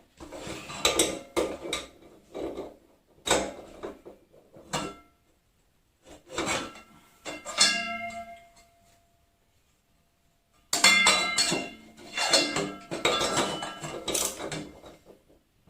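Metal parts and tools clattering, clinking and scraping in irregular bursts, with a metal piece ringing briefly about eight seconds in and a busier stretch of ringing clatter near the end.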